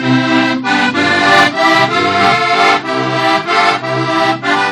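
Heligonka, the Slovak diatonic button accordion, playing a lively folk tune: full sustained chords over a regular pulsing bass, as the instrumental lead-in to a song.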